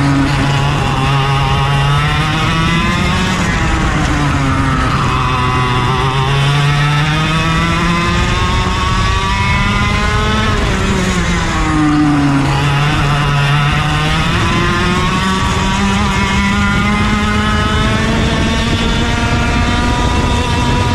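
Racing go-kart engine running hard, its pitch falling twice as it slows and climbing again as it accelerates.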